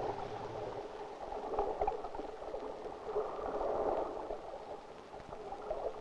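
Soft bubbling, gurgling water, swelling a little past the middle and fading toward the end.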